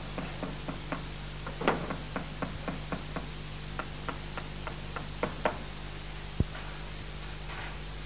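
Hammering at a concrete building site: a run of sharp knocks at about four a second, the loudest near two seconds in. The knocks stop after about five and a half seconds, followed by one sharp thud. All of it sits over a steady hiss and a low hum.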